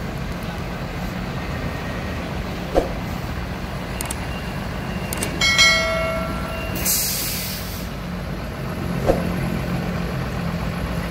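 Mercedes-Benz truck's diesel engine running steadily, with a short pitched tone about halfway through followed by a brief hiss of compressed air from the air brakes. Two short clicks, a few seconds in and near the end.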